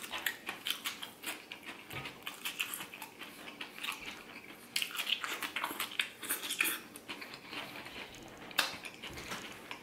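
A person chewing a mouthful of fried oyster po' boy sandwich close to the microphone: many quick, crisp crackles and wet mouth sounds.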